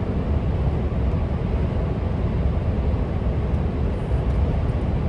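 Steady low engine and road rumble inside the cab of a Scania R500 V8 tractor unit on the move.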